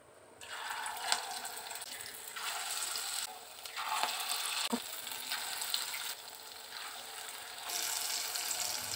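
Piyaju (onion-and-lentil fritters) sizzling as they deep-fry in hot oil, with portions of batter dropped in by hand. The sizzle starts about half a second in and changes strength abruptly several times.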